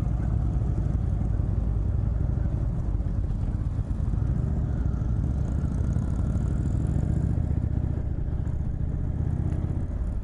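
Indian Chieftain's Thunder Stroke 111 V-twin running steadily while the motorcycle is ridden along the road.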